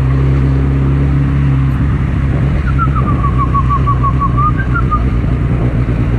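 Suzuki GSX650F's inline-four engine running at a steady speed under heavy wind noise on the microphone. In the middle comes a quick run of about a dozen short, high chirps.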